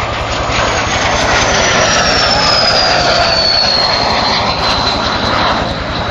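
Fouga Magister jet trainer's twin Turboméca Marboré turbojets on a low, close pass. A loud rush of jet noise with a high whine that falls steadily in pitch as the jet goes by.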